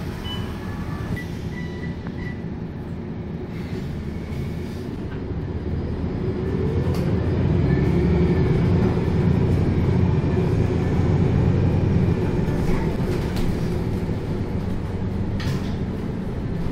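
Euro 6 MAN NL323F city bus's six-cylinder diesel heard from inside the cabin, ticking over at a stop and then pulling away: from about six seconds in a rising whine and a growing rumble as it accelerates, easing off again later. A few short high beeps near the start.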